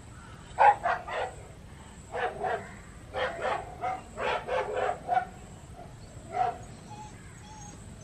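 Recorded dogs barking, played back through a phone's small speaker: short barks come in quick groups of two or three over the first five seconds, then one more about six and a half seconds in.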